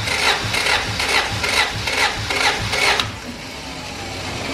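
Honda B-series four-cylinder engine cranking on the starter during a compression test, pulsing with each compression stroke at about two beats a second. The cranking stops about three seconds in, leaving a faint hiss.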